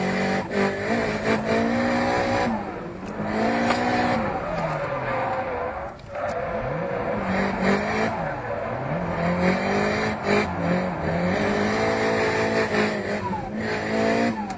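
Drift car's engine heard from inside the cabin, its revs rising and falling again and again as the throttle is worked through the drift, with short drops where it lifts off. Tyres squeal underneath.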